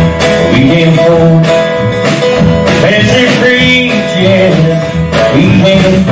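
Live country band playing: acoustic guitar, upright bass and drum kit.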